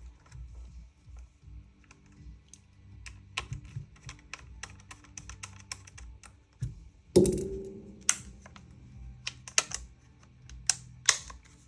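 Small metal clicks and taps of rifle parts and tools being handled during reassembly of an airsoft gas blowback rifle. A louder knock comes about seven seconds in, with a brief ring after it.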